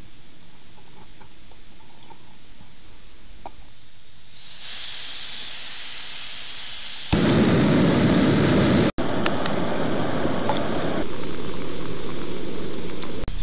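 Etek City canister camp stove being fitted and lit: a few light clicks of metal being handled, then about four seconds in a steady hiss of gas. About three seconds later comes a louder, deeper rushing of the burner flame, which runs on steadily after a brief break.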